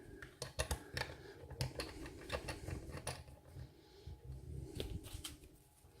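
Small brass parts and tools being handled by hand: light, irregular clicks and taps, several a second at times, with quieter stretches between.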